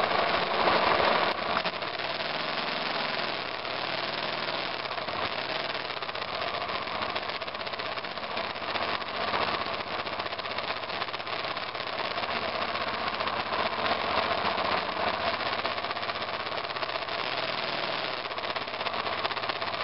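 The single-cylinder engine of a 2002 BMW F 650 GS Dakar motorcycle runs steadily under way on a trail, picked up close by a mirror-mounted camera.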